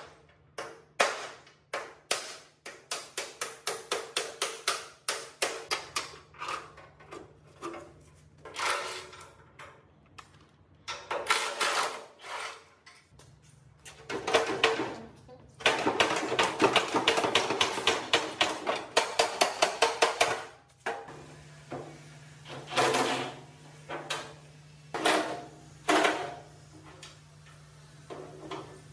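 Workshop hand-tool work: runs of quick, sharp knocks, several a second, dense and continuous for a few seconds in the middle, with a faint steady hum underneath.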